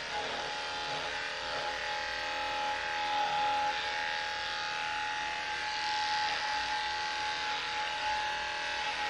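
Electric dog grooming clippers running steadily with a high hum while clipping the dog's fur, the pitch dipping slightly now and then.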